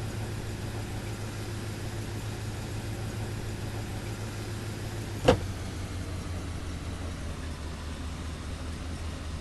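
Range Rover engine running steadily at low revs, with one sharp knock about five seconds in, after which the engine note drops slightly.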